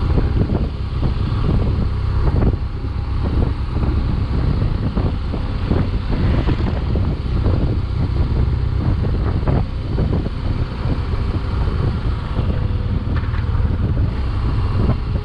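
BMW GS motorcycle running steadily at road speed, heard from the rider's position, with wind rushing and buffeting over the microphone.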